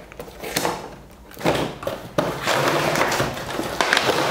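Cardboard toy box being opened by hand: after a quiet start, the lid scrapes and slides off and the cardboard and plastic packaging rustle, with a few sharp clicks, from about a second and a half in.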